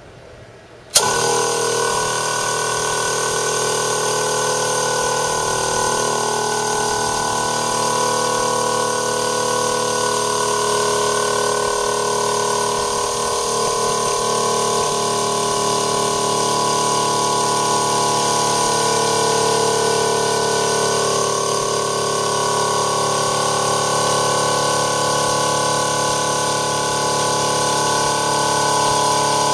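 TWO STAR HT25L-15A 12-volt DC reciprocating-piston air compressor switching on with a sudden start about a second in, then running steadily. It is filling its air tank from empty, with the pressure building as it runs.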